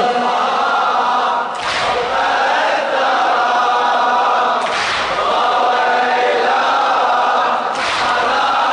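Male chorus holding a sustained chanted line of a Shia latmiya, with a deep thump about every three seconds, three in all.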